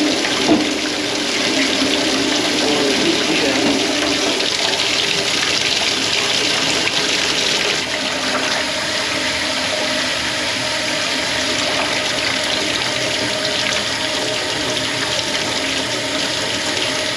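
Water running in a strong, steady rush.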